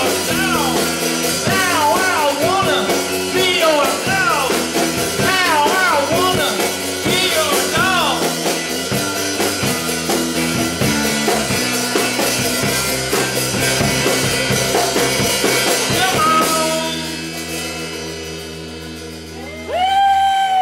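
Rock band playing live: distorted electric guitars, bass guitar and a drum kit, with many rising and falling pitch bends. About three-quarters of the way through the full band stops and a held chord rings and fades, then a loud pitched cry rises and falls near the end.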